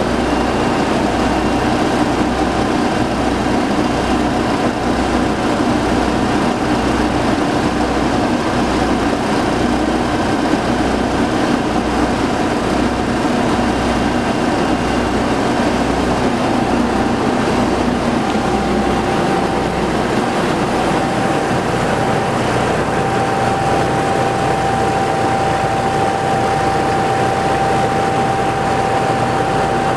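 Sterling L7500 vacuum truck with a Caterpillar 3126 diesel, running steadily with an even low pulsing, and a steady whine that comes up clearly past the middle.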